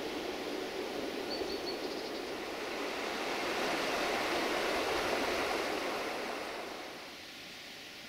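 River water rushing, a steady hiss of flowing water that swells in the middle and drops away near the end. A few faint, short high peeps come about a second and a half in.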